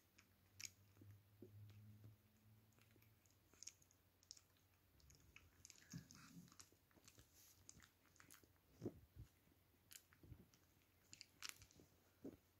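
Near silence with faint, scattered little mouth clicks and smacks from newborn beagle puppies sleeping huddled together, and a faint low hum over the first few seconds.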